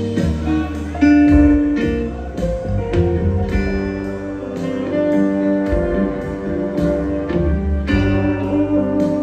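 Live band playing a slow instrumental passage, with guitar lines to the fore over bass and keyboards.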